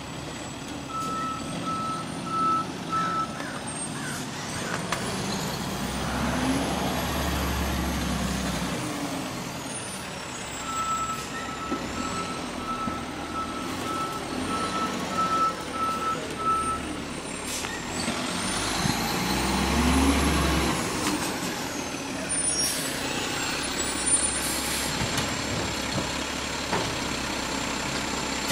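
Automated side-loader garbage truck at work. Its backup alarm beeps in two runs, and twice the engine revs with a rising then falling whine as the hydraulic lift cycles. A few sharp knocks come about three-quarters of the way through.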